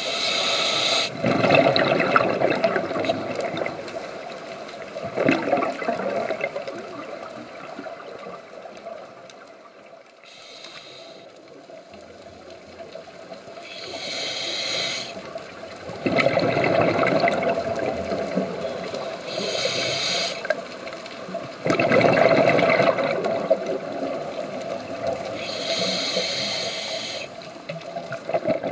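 Scuba regulator breathing underwater: each inhale is a short high hiss through the regulator, each exhale a longer rush of bubbles, in a slow cycle repeated several times.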